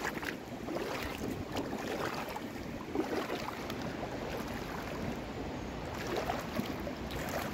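Shallow river water rushing, with a few irregular sloshing splashes of someone wading through it.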